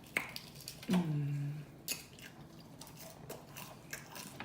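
Close-up mouth noises of eating: chewing and lip-smacking with sharp wet clicks scattered throughout. About a second in comes a short hummed "mm" that falls in pitch.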